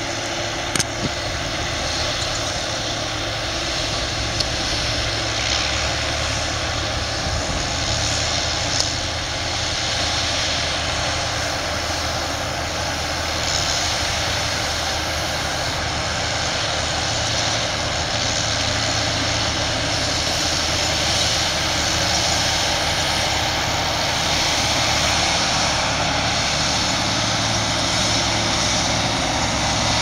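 Claas Lexion combine harvesters running steadily while harvesting: a constant engine and threshing-machinery drone with a steady hum, slowly growing a little louder.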